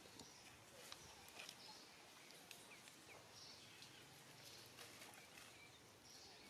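Near silence: faint crackles and light snaps of dry leaf litter and twigs as a young macaque moves through the undergrowth. A few short, faint high chirps sound in the background.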